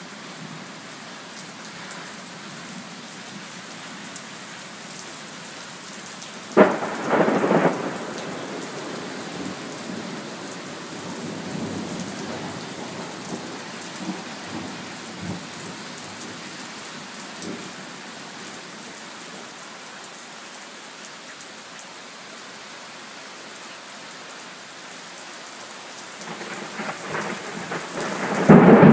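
Thunderstorm: steady rain with a sudden thunder clap about six and a half seconds in, scattered low rumbles, and thunder swelling to a loud peak near the end.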